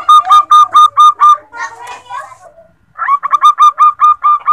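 Female zebra dove (perkutut) calling: two quick runs of short, hooked cooing notes, about five a second, the second run starting about three seconds in.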